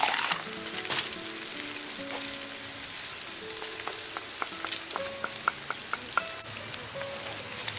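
Diced pork, onions and chopped garlic sizzling steadily as they fry in hot oil in a pan.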